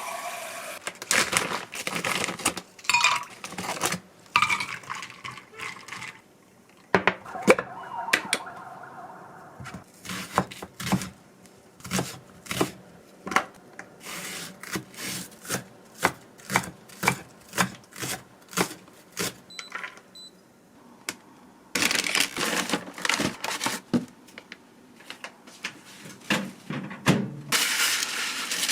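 Kitchen handling sounds: sharp knocks and clatter, with a steady run of taps about two a second in the middle stretch.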